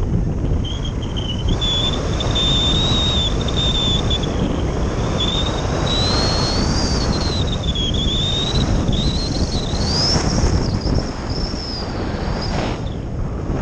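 Airflow rushing over a slope-soaring RC glider in flight, heard from an onboard camera as heavy wind noise. A thin high whistle rides on it, rising and falling in pitch as the glider banks and dives, and fades out near the end.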